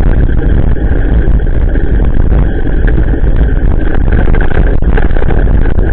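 Steady, loud wind and road rumble on an action camera's microphone while cycling on a wet road, mostly deep low noise.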